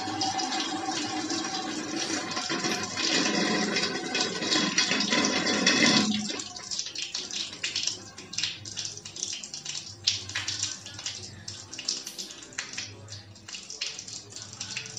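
Heavy rain hissing steadily, with a voice from a television faintly underneath. The rain noise cuts off abruptly about six seconds in, leaving scattered light taps and drips.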